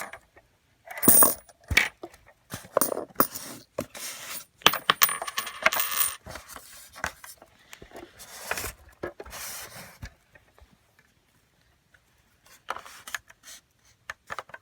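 Quarters clinking and rattling together in a run of sharp clicks and jingles as they are emptied out of a LEGO vending machine's coin box, thinning to a few quieter clicks near the end.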